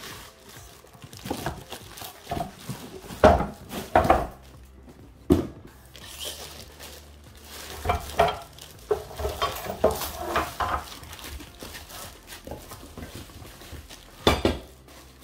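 Plastic wrapping rustling and crinkling as metal dumbbell-rack pieces are pulled from their cardboard box, broken by several sharp clanks as the pieces knock together and are set down, the loudest about three and four seconds in and another near the end.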